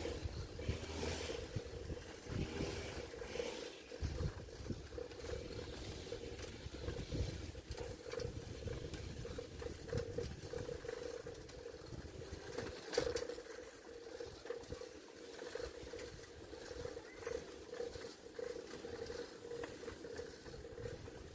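Riding noise from a bicycle on a street: wind buffeting the microphone and rolling noise, with a steady hum and one sharp click about thirteen seconds in.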